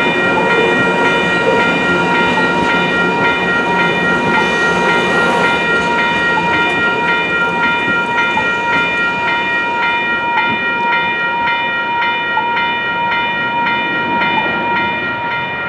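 Grade-crossing warning bell ringing steadily as the bilevel passenger cars of an Amtrak Pacific Surfliner train roll past over the crossing. The train's rumble fades about halfway through, leaving the bell ringing.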